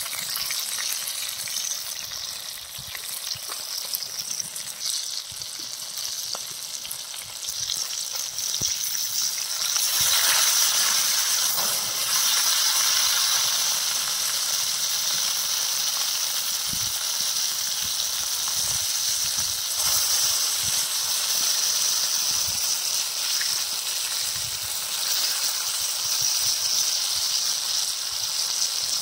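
Masala-coated tuna slices shallow-frying in bubbling oil on an iron griddle: a steady sizzle with small pops, louder from about ten seconds in.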